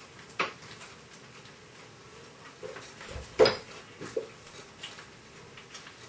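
Food items and containers knocking and clattering against the shelves of an open mini fridge as someone rummages through it: a few scattered sharp knocks, the loudest about three and a half seconds in.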